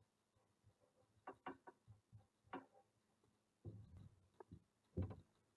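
Near silence with a few faint short ticks and scratches of a marker writing on a paper slip, then a few soft dull sounds of the paper being handled near the end.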